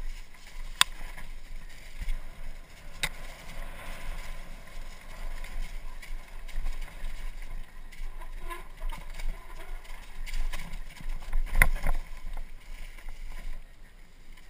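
Mountain bike descending a rough dirt trail: steady rumble of tyres and rattling frame with wind buffeting the helmet-mounted microphone. Sharp clacks from the bike over bumps come about a second in, around three seconds in, and loudest near the end.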